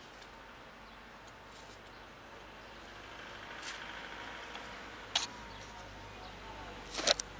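Low rumble of a passing motor vehicle, swelling from about three seconds in. A sharp click about five seconds in and a quick cluster of louder knocks near the end.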